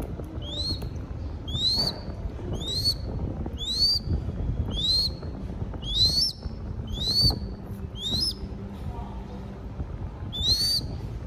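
A downy crested goshawk chick giving a series of high begging calls, each a short upslurred squeal that dips at its end, about one a second, with a gap of a couple of seconds before the last one.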